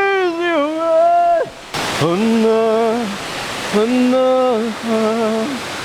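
A person's voice singing a slow wordless tune of long held notes, over the steady rush of stream water.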